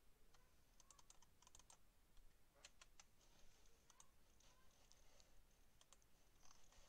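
Faint clicks of a computer keyboard and mouse, coming in short, irregular clusters.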